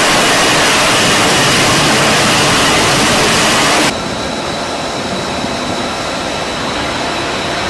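F-35B hovering on jet thrust and lift fan: a loud, steady jet rush. About four seconds in the sound cuts abruptly to a quieter, duller rush with a faint high whine.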